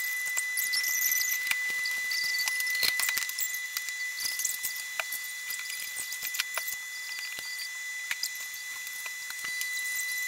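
Food sizzling and crackling in hot frying pans, with frequent irregular sharp pops, over a faint steady high whine.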